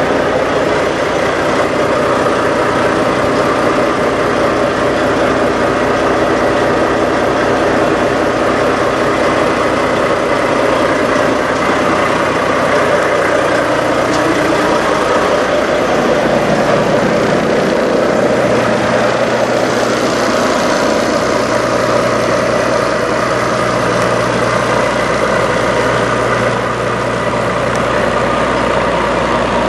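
Diesel semi-truck engines idling close by, a steady rumble; a deeper steady hum comes in about eighteen seconds in.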